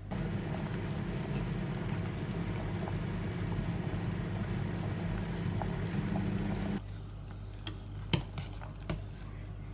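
Food sizzling in a pan, a dense steady hiss that cuts off suddenly about two-thirds of the way through, followed by a few sharp knocks of a utensil.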